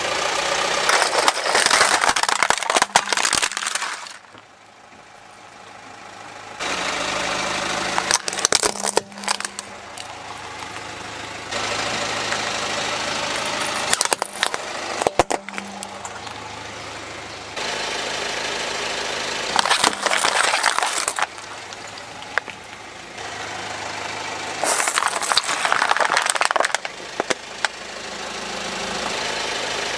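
A car tyre rolling onto plastic toys and plastic bottles and crushing them, with sharp cracking and crunching over the car's engine running. The segments change suddenly several times, each with its own cluster of cracks.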